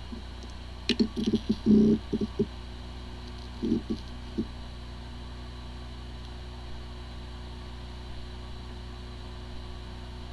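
Hard disk drive running: a steady hum from the spinning platters, broken by two short clusters of head-seek knocks, about one to two and a half seconds in and again near four seconds. The drive has corrupted disk firmware: it sounds like a healthy drive, yet the computer cannot detect it.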